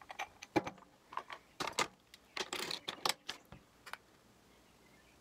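Makeup cases and containers being handled: a run of irregular clicks and light clatter, with a short rustle in the middle, that stops about four seconds in.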